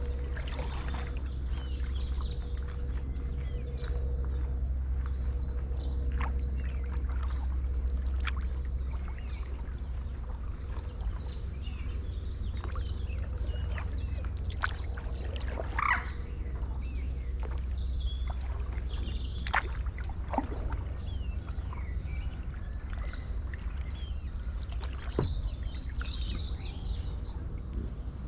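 Stand-up paddleboard paddle working the water, with scattered splashes and drips, the loudest about halfway through. Birds chirp throughout over a low steady rumble.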